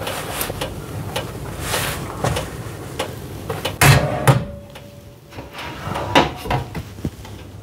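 Hot metal oven tray being handled while chapati bread is flipped and taken off it: scattered clatter and knocks, the loudest knock about four seconds in followed by a short ringing tone.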